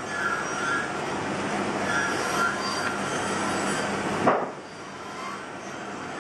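A whittling knife paring a wooden Dala horse: a steady rasping of cuts with short high squeaky tones now and then. A sharp knock about four seconds in, after which it goes quieter.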